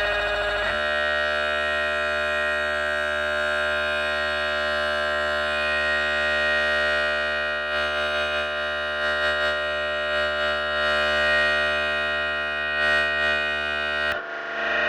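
Music played loud through RK Power DJ speaker cabinets during a sound check. A long, steady held chord runs until it cuts off near the end, and a distorted, guitar-like sound comes in.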